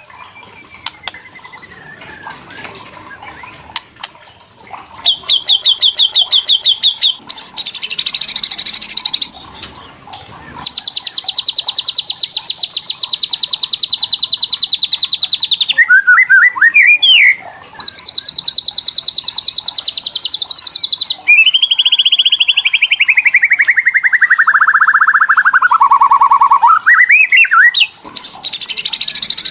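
White-rumped shama giving its rattling 'kretekan' calls: long runs of very fast repeated high notes, most held at one pitch and one sliding steadily down near the end. The first few seconds are quieter before the loud runs begin.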